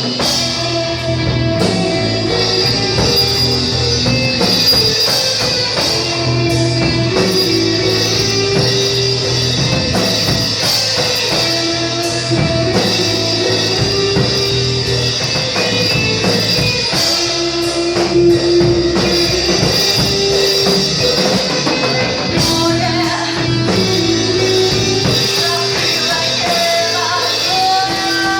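Rock music with drum kit and guitar, and a singing voice.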